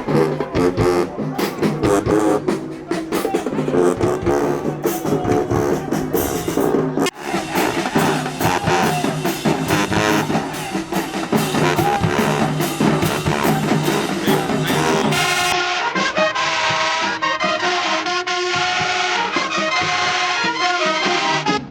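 Music with brass and drums, loud and continuous, changing in character about three-quarters of the way through.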